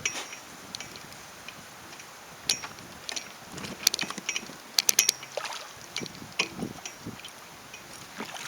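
Scattered light clicks and knocks around a small fishing boat, with a quick cluster of clicks about halfway through, over a faint wind hiss.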